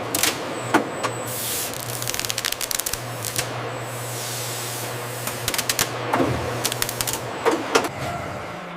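Packaging-line machinery running: a steady low hum and hiss with scattered sharp mechanical clicks and clacks, fading out near the end.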